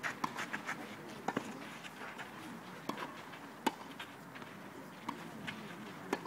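Tennis balls struck with rackets and bouncing on a clay court during a rally. Sharp pops come a second or so apart, the loudest a little past halfway through.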